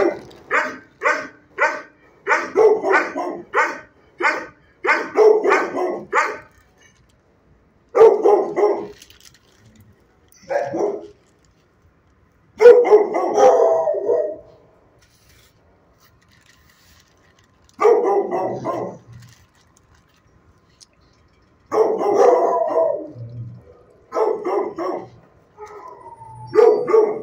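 Shelter dogs barking: a quick run of barks, about two a second, for the first six seconds, then short bouts of barking every few seconds with quiet gaps between.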